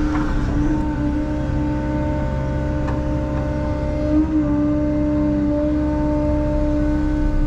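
Bobcat E165 compact excavator's diesel engine and hydraulics running steadily under load as the boom and bucket dig, with a steady whine over the engine drone, heard from inside the closed cab.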